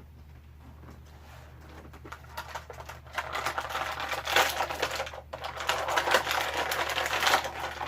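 Plastic action-figure packaging crinkling and clicking as it is handled and the pieces are pulled from the tray, starting about two and a half seconds in and getting louder toward the end.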